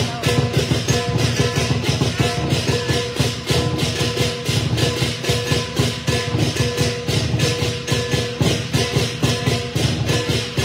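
Lion dance percussion: a large lion drum beaten in a fast, steady beat with clashing cymbals keeping time.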